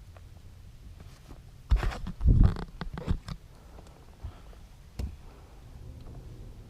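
A quick cluster of thumps, knocks and scraping, loudest a little over two seconds in, then one more sharp knock near the five-second mark, over a low steady rumble.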